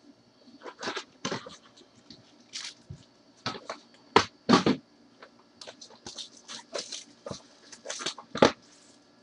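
Gloved hands opening a Topps Tier One trading card box and handling its contents: an irregular run of short rustles, scrapes and taps. The loudest come about four seconds in and again near the end.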